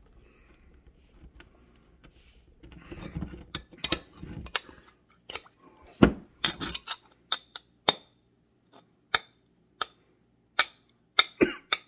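Metal crown cap being pried off a glass Coca-Cola bottle with a pocket tool: scraping and rattling, then the cap comes off with a loud sharp click about six seconds in. About a dozen more sharp clicks follow at uneven intervals.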